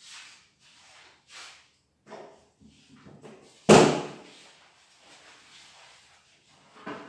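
A door slamming shut once, loudly, about halfway through, among softer knocks and shuffling sounds of things being moved around.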